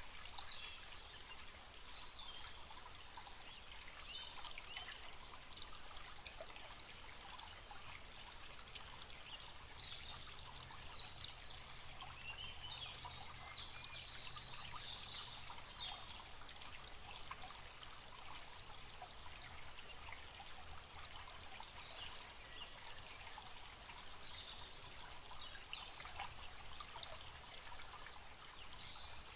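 Forest stream flowing steadily, with birds calling now and then in short, high chirps.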